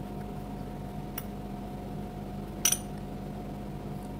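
A metal spoon clinks once against a plate about two-thirds of the way in, with a fainter tick a second in, over a steady background hum.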